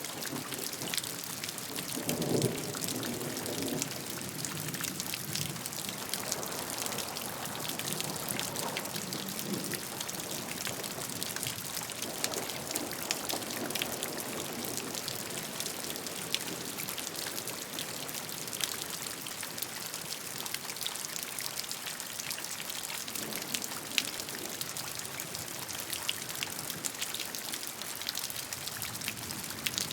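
Steady rainfall, a dense even hiss with many individual drops ticking sharply on a surface, and a few soft lower swells coming and going.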